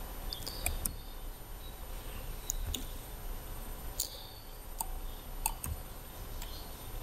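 Computer mouse clicking: about ten sharp clicks at uneven intervals, some in quick pairs.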